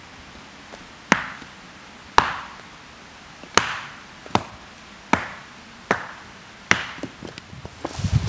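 Firewood being chopped: about seven sharp chopping strikes on dry wood, roughly one a second, followed by a few lighter knocks near the end.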